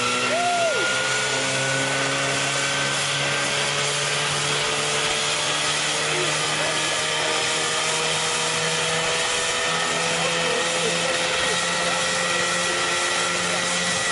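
Engine of a homemade single-seat helicopter running steadily with its rotor turning, its pitch creeping slowly upward as it spins up.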